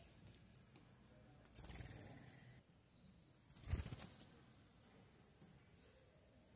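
Sayaca tanager's wings fluttering as it lands on a feeder, a brief flurry about three and a half seconds in that is the loudest sound. Before it come a couple of faint, very short, high chirps.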